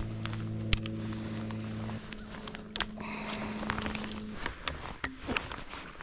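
Rustling and sharp clicks as a gun is handled on a tripod rest, two clicks standing out about a second apart and near the middle. Behind them, a low held music chord stops about two seconds in.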